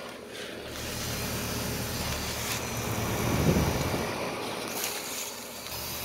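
Outdoor unit of a 1994 Bryant 661BJ two-ton heat pump running steadily in heat mode just after start-up: the low hum of its Tecumseh reciprocating compressor under the rush of the fan's air, really quiet, growing a little louder about a second in.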